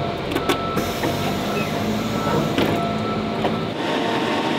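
Steady electrical and mechanical hum of an electric city bus and its charging equipment, with a few light clicks and knocks. The hum grows louder and fuller near the end.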